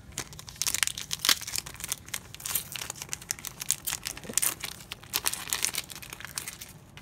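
Foil trading-card booster pack wrapper being torn open and crinkled, a dense run of crackling that stops near the end.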